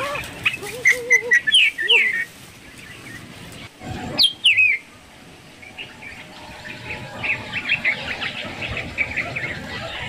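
Small birds chirping in short, quickly falling calls, in clusters near the start, around four seconds in, and in a quick run of chirps later on.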